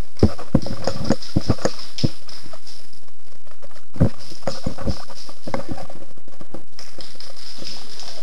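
Footsteps crunching across a hard floor strewn with grit and debris: an irregular run of knocks, thickest in the first two seconds and again around four to five seconds in, with a high hiss that comes and goes.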